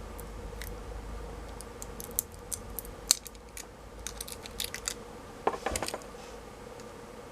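Irregular sharp clicks and taps of hard plastic and metal parts being handled while a notebook battery pack is taken apart for its 18650 cells, with a quick cluster of heavier knocks about five and a half seconds in, over a faint steady hum.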